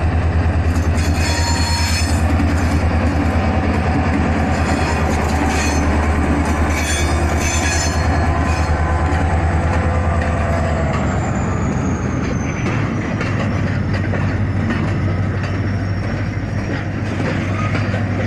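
Freight train passing, hauled by a GE diesel-electric locomotive: the engine drones strongly under load for about the first ten seconds, then eases off as the wagons roll by. Steel wheels squeal high in the first several seconds over a steady rumble and clatter of the wagons on the rails.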